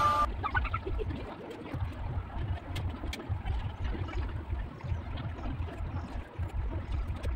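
Graphite pencil scratching and tapping on drawing paper, with a low, uneven rumble of hand and table noise underneath. A music track cuts off right at the start.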